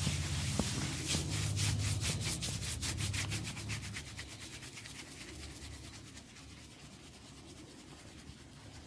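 Hands briskly rubbing an oiled scalp and hair in a head massage: quick, even scrubbing strokes, several a second, that fade away about halfway through, leaving a faint rustle.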